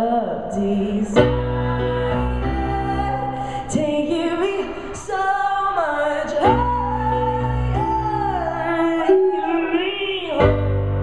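A young boy's high, unbroken voice singing a slow song live, with long held notes that bend in pitch, over sustained piano or keyboard chords, amplified through a PA speaker.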